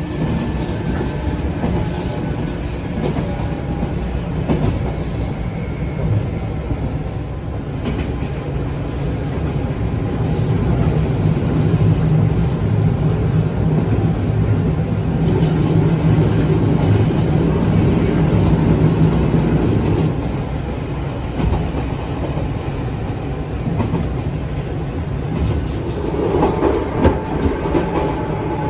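Izukyu 2100 series resistance-controlled electric train heard from inside the car while running: a steady rumble of wheels on rail and traction motors. The rumble grows louder for a stretch in the middle, then eases, with a few sharper clatters and a faint tone near the end.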